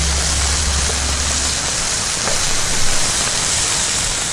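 Meat sizzling on an asado grill: a steady, loud hiss, with a low hum underneath that stops about a second and a half in.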